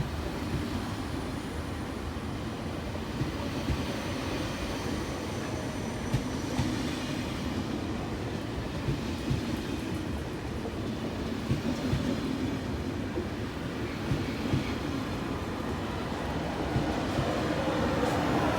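SNCF train moving along the platform: a steady rumble with irregular wheel knocks over the rail joints and a faint thin squeal in the first half, growing louder near the end.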